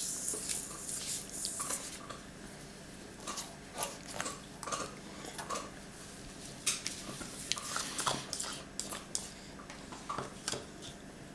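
Irregular light clicks and clatters of dishes and a spoon being handled on a high-chair tray while a toddler eats yogurt.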